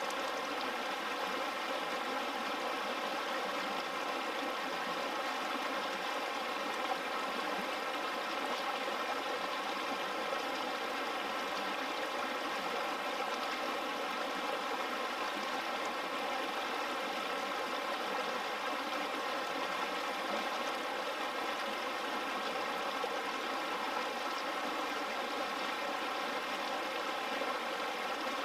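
Mountain stream rushing over rocks in a steady, even wash of water sound.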